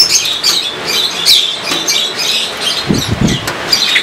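Birds chirping over and over, short high calls several times a second, with a brief low thud about three seconds in.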